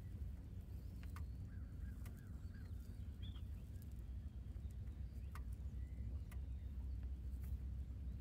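A few faint, short bird chirps over a steady low rumble, with several sharp ticks.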